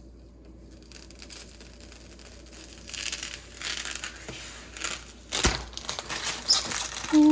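Irregular rustling and crinkling handling noise with small clicks, such as cables and peripherals being handled while a keyboard is hooked up to a PC, with one sharp knock about five and a half seconds in.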